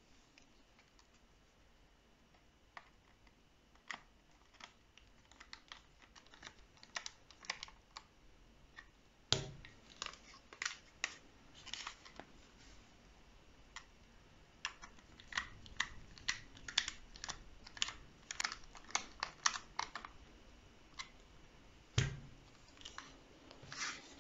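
Handling clicks and taps of a KJW MK1 airsoft pistol being fitted into its 3D-printed stock, irregular and many. Two heavier knocks stand out, about nine seconds in and near the end.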